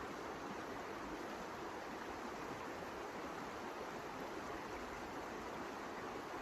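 A steady, even rushing noise with no separate sounds standing out.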